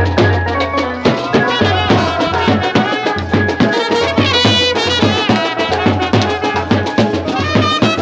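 Wedding brass band playing a lively folk dance tune: trumpet melody over a quick, steady beat on a side-slung band drum.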